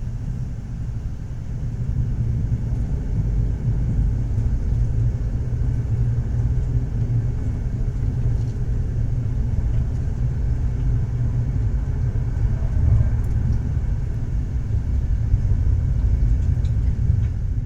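Train running on rails: a steady low rumble with a few faint clicks.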